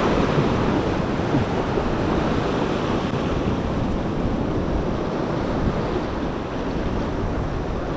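Surf breaking and washing over shoreline rocks: a steady rush of foaming seawater, with wind buffeting the microphone in a low rumble.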